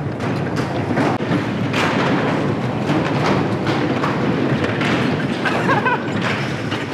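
Bumper cars running and colliding: repeated thuds of cars knocking into each other over a dense din of ride noise and fairground music.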